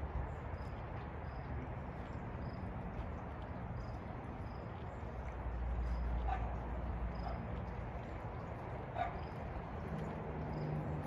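A dog barking faintly, about three short barks in the second half, over a steady low rumble.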